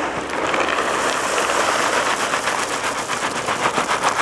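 Royal Oak charcoal hardwood pellets poured from the bag into the pellet hopper of a Traeger Ironwood XL, a dense steady rattle of pellets pattering onto the pile. Near the end it thins into more separate ticks.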